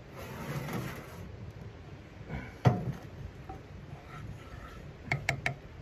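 Steel frying pan scraped across the top of a steel wood stove, then set down with one sharp clunk. Near the end, a wooden spatula knocks three times in quick succession against the pan.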